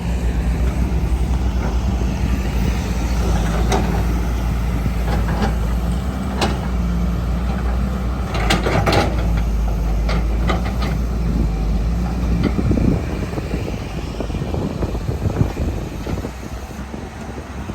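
John Deere 200 LC excavator's diesel engine running under digging load, with several sharp knocks in the middle as the bucket works the ground. The engine drone eases off about two-thirds of the way through.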